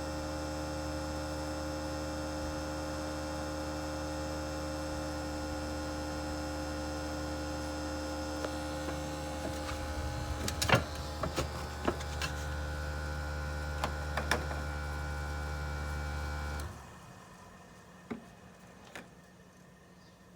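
Outdoor unit of a 1995 Toshiba RAS-251ETS air conditioner, with a twin-rotary compressor, running in cooling mode with the fan at maximum: a steady hum holding several fixed tones. A few clicks and knocks come about halfway through, then the hum drops away quickly near the end, leaving it much quieter.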